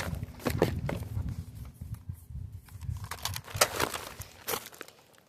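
Wind rumbling on the microphone, with a few scattered short clicks and crunches. The rumble dies away near the end.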